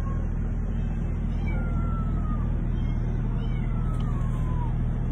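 A cat meowing about every two seconds, each a single falling cry, over a steady low hum.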